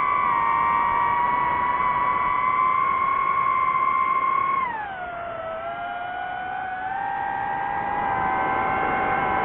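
DJI FPV quadcopter's motors and propellers whining, several close tones together, the pitch falling as the throttle eases about halfway through, then climbing again and dipping near the end.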